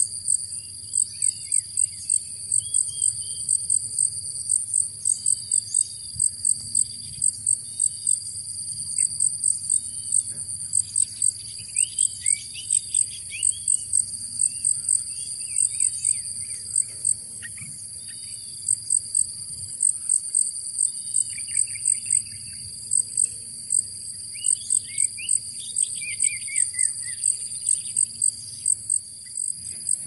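Insects chirping in a fast, regular, high-pitched pulse over a steady high insect drone. Short chirping bird calls come and go, busiest around the middle and again near the end.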